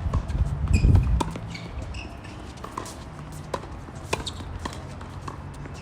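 Wind buffeting the microphone with a low rumble, strongest in the first second, over a scattering of sharp pops from tennis balls being hit and bouncing on the court.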